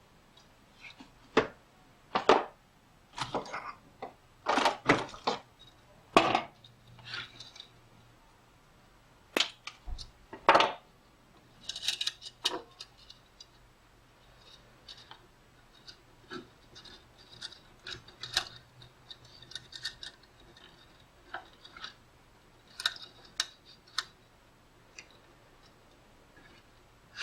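Irregular clicks, taps and short rattles of welding wire and small welder parts being handled while the wire is threaded through a flux-core welder's wire-feed drive. The clatter is densest in the first half and thins out to fainter ticks.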